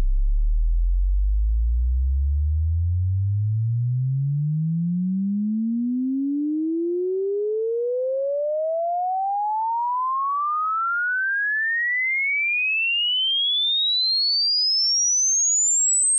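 Sine-wave test sweep rising steadily in pitch from deep bass up into the high treble, played through the Klanghelm DC1A3 compressor plugin with its DEEP side-chain high-pass filter switched in. The level dips slightly through the middle of the sweep, around 1 kHz, where the compression is heaviest, and is louder at the low and high ends, which are less compressed.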